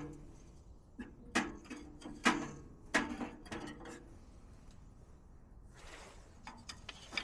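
A handful of light knocks and clatters of objects being handled and set down, then a brief rustle about six seconds in.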